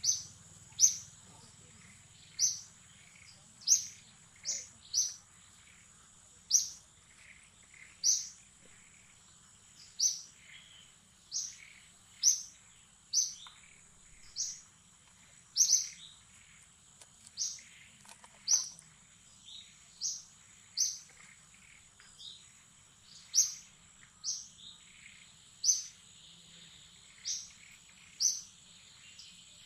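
A bird chirping over and over: short, sharp, very high chirps, roughly one a second at an uneven pace, over a faint steady high-pitched drone.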